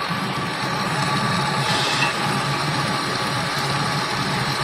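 Metal lathe running while a boring bar takes a roughing cut inside a 4140 steel gear, cutting away its worn internal splines. It is a steady machine sound with a thin, constant whine and a short scrape of cutting noise about two seconds in.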